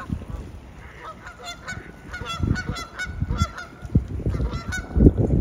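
A flock of Canada geese honking: many quick overlapping calls that start about a second in and keep going. Gusts of wind buffet the microphone underneath, the strongest near the end.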